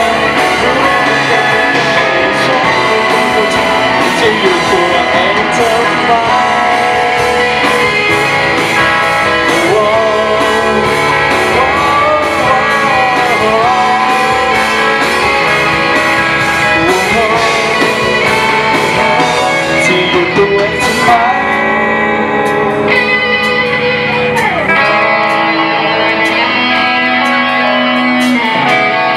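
Live band playing an amplified pop-rock song: a male lead singer over electric guitars, bass, drums, keyboard, saxophone and trumpet. The voice carries most of it, and an instrumental passage takes over near the end.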